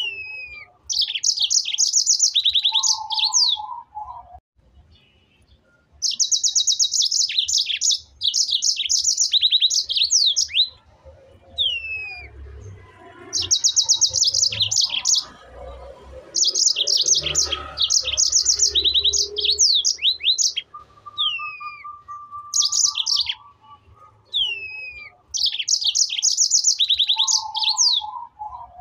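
A songbird singing: repeated phrases of very rapid, high trills with short down-slurred notes, a phrase every few seconds. A softer low rumble runs underneath about halfway through.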